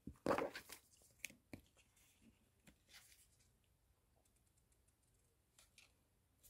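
Glossy paper album contents being handled: a short rustle and slide of pages and cards near the start, then scattered light clicks and taps as the cards are picked up and moved.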